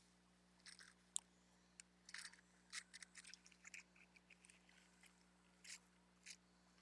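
Faint, scattered rustles and small scrapes of hands handling a roll of rickrack trim, fingers working over it to find the loose end.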